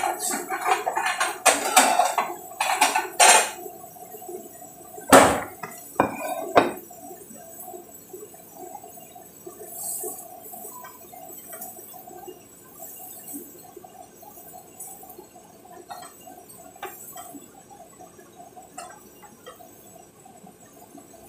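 Kitchenware clinking and knocking: a ceramic plate and utensils set down on a stone counter and tapped against a steel cooking pot, a quick run of clinks in the first seven seconds with the loudest knock about five seconds in. After that only a few light clicks over a steady background.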